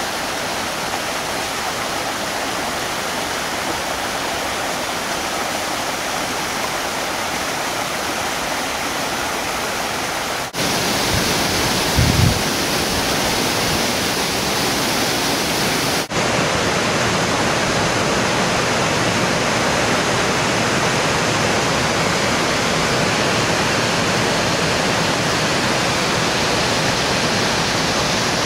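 Steady rush of a river and small waterfall tumbling over rocks. It jumps louder about a third of the way in, with a brief low thump soon after.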